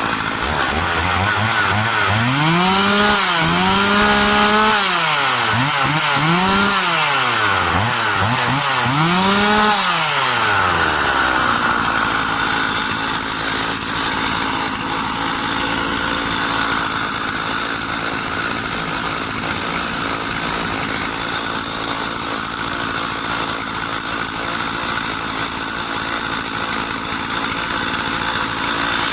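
Husqvarna 50 chainsaw's single-cylinder two-stroke engine revved up and back down three times, the first rev held for a couple of seconds. It then keeps running with a steady, even sound for the rest of the time.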